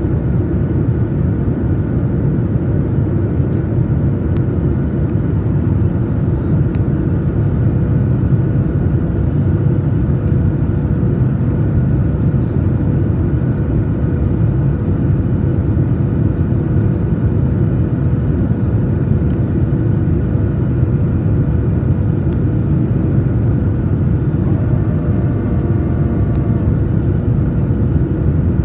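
Steady cabin noise inside a Boeing 737-900ER on approach, heard from a window seat over the wing: a deep, even drone of the CFM56 engines and the airflow. A thin steady hum runs under it, and a faint higher whine comes in briefly near the end.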